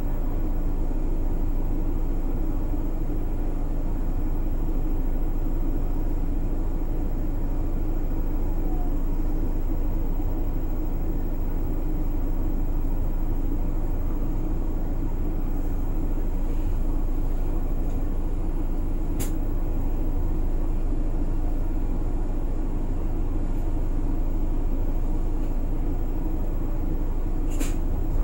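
Interior of a city route bus running: a steady engine and drive rumble heard from inside the cabin, with a couple of short clicks, one midway and one near the end.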